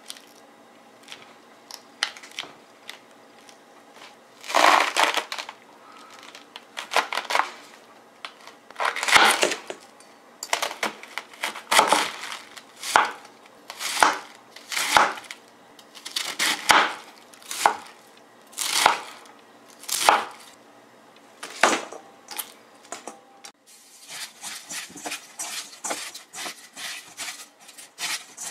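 Head of cabbage being cut with a kitchen knife on a plastic cutting board: about a dozen crunchy cuts through the leaves, one every second or two. Near the end, cut cabbage leaves being squeezed and rubbed with salt by hand in a stainless steel bowl, a quicker, quieter crackling rustle.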